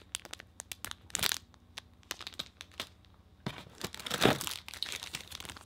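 Clear plastic packaging bags crinkling and cardboard box flaps rustling as accessories are handled and pulled from a box: irregular sharp crackles, with the loudest stretch about four seconds in.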